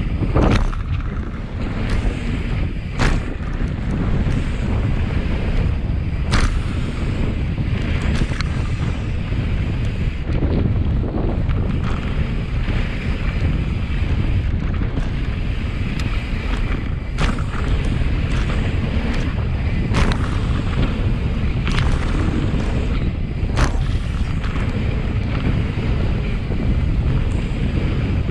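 Wind buffeting the microphone of a mountain bike rider at speed, a steady low rush, with a handful of sharp knocks scattered through it.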